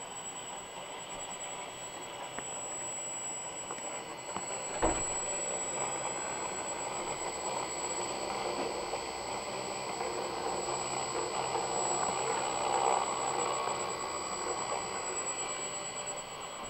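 Spindle motor of a homemade CNC router running steadily as its bit mills clear plastic sheet, with a steady high whine. A single sharp knock about five seconds in.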